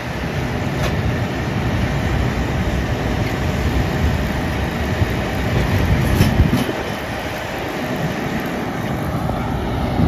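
A Fendt 412 tractor running under load and driving a CLAAS Rollant 255 round baler. Around the middle, the baler's tailgate rises to drop a finished round bale, the noise building and ending in a sharp knock about six seconds in.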